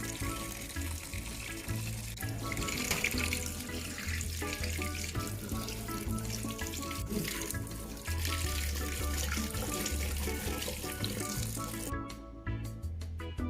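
Water running from a tap into a sink, a steady rush that cuts off suddenly near the end, over background music with a steady bass line.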